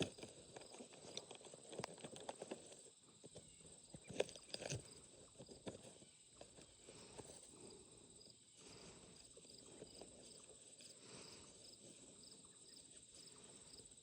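Faint footsteps and rustling for the first several seconds, a little louder around four to five seconds in, with crickets chirping steadily and faintly.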